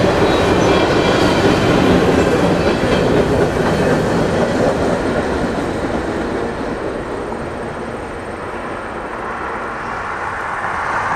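The tail end of a freight train rolling past, steel wheels clicking over the rail joints, then fading away as the last car, a covered hopper, pulls off. A different steady rushing sound starts to rise near the end.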